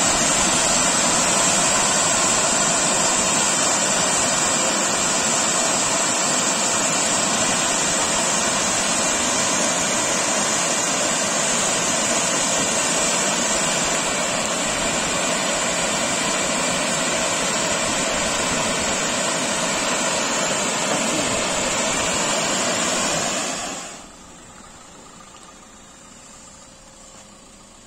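Electric blower fans of a touchless car-wash dryer running with a steady loud rush of air and a faint whine during the drying stage, then winding down and shutting off about three seconds before the end.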